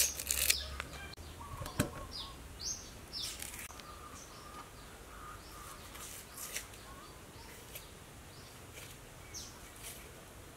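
Dry red onion skins crackling and tearing as they are peeled off with a kitchen knife: short scattered rasps, more frequent in the first few seconds and sparser after.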